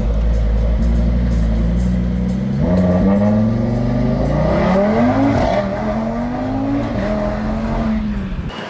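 High-horsepower car engine accelerating hard, its note climbing and falling back several times.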